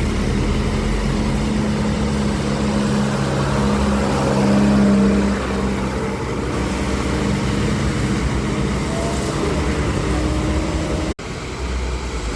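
Road traffic on a wet road after rain: engines running steadily, with a continuous hiss, swelling as a vehicle passes about four to five seconds in. The sound cuts out for an instant about eleven seconds in.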